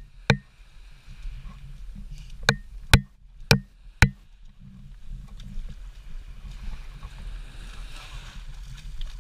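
Sharp clinks of scuba gear jostling on a walking diver, a handful of them about half a second apart, over a low rumble and the hiss of small waves washing onto the shore.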